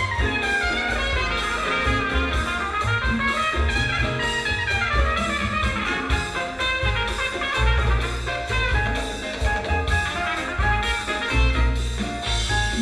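Jazz with trumpets and a drum kit, played back through a 1940s Kofler Radio Bassano cinema tube amplifier and horn loudspeakers.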